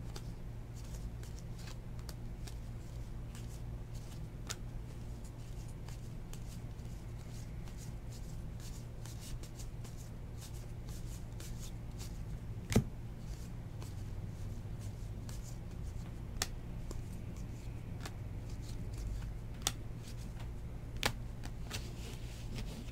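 Baseball trading cards being thumbed through and sorted by hand, their edges flicking and ticking against one another. There is one sharper, louder card click about halfway through, over a steady low hum.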